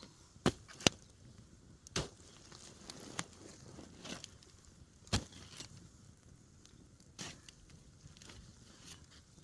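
About half a dozen sharp, irregular cracks and knocks over a faint background, from a wood fire and a pitchfork being worked against the roasting goat carcass. The loudest comes about a second in.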